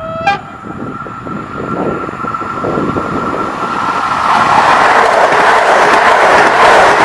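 PESA Dart electric multiple unit approaching at speed and passing close by. It gives a brief toot of its horn just after the start, a steady high whine is heard as it nears, and the loud rush of the train going past builds from about four and a half seconds in.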